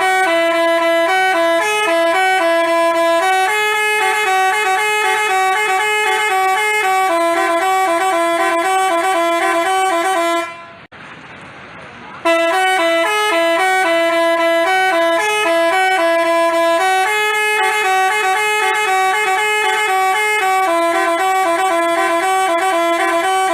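Basuri telolet bus horn, a multi-tone musical horn, playing a tune in quick stepped notes. The same tune is played twice, with a gap of about two seconds a little before the middle.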